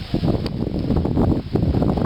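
Wind buffeting the microphone along with rustling of brush, a dense, irregular noise with no clear rhythm.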